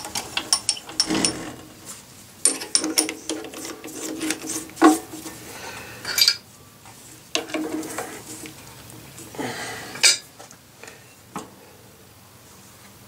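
Metal clinking and clattering of steel parts knocked together while the steel plate, vise and drill-press fittings are handled and adjusted: a quick run of sharp clinks in the first few seconds, then scattered single clinks, one louder about ten seconds in.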